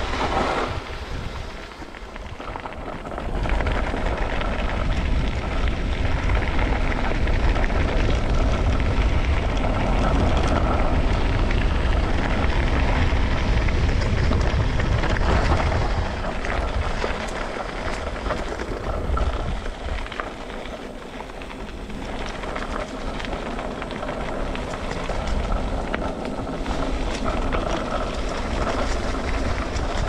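Mountain-bike tyres crunching and crackling over a loose gravel and stone track, under a heavy rumble of wind on the microphone at speed. The wind rumble is loudest from about 4 to 16 seconds in and then eases.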